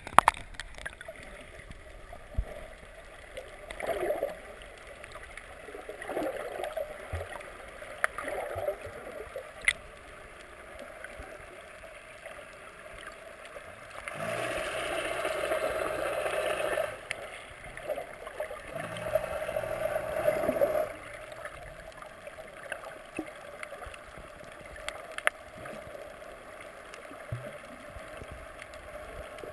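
Muffled water noise heard underwater, with faint gurgling and small clicks, and two louder rushing stretches about halfway through.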